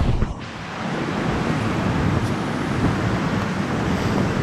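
Steady rushing noise of a river running over rocks and falls, with a brief dip about half a second in.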